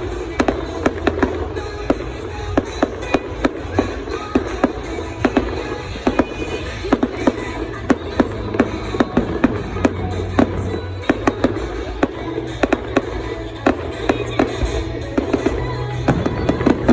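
Fireworks going off in quick succession: many sharp bangs and crackles, several a second, with music playing underneath.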